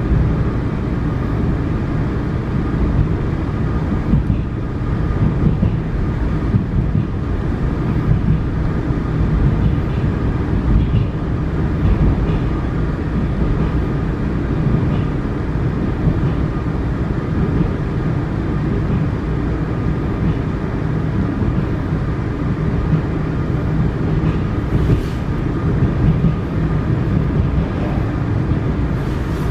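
Vienna U-Bahn U1 metro train running at speed, heard from inside the carriage: a steady low rumble of the wheels on the rails.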